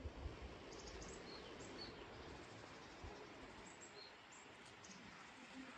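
Faint, scattered short high bird chirps, a dozen or so brief calls, over a low steady background hiss.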